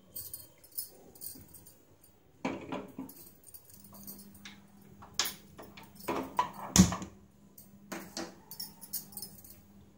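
Steel spoon and small stainless steel pot clinking and knocking as jaggery is stirred into water and the pot is set on a gas burner: scattered metallic taps, the loudest about two-thirds of the way in. A faint steady hum comes in about four seconds in.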